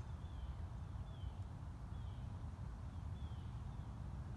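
A bird repeating a short, high, down-slurred note about once a second, over a low steady rumble.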